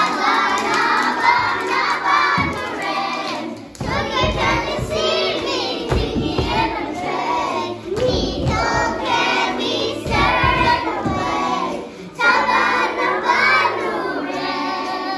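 Group of young children singing an action song together over a backing track, with some hand clapping.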